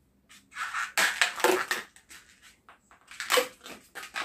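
Inflated latex modelling balloon rubbing and creaking against the hands as it is handled and measured off for the next twist. The sound comes in a longer rasping stretch from about half a second to nearly two seconds in and a short one about three and a half seconds in.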